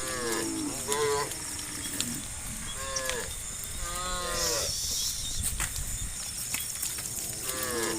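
Cattle in a herd mooing, about five drawn-out calls, several of them arching and then falling in pitch.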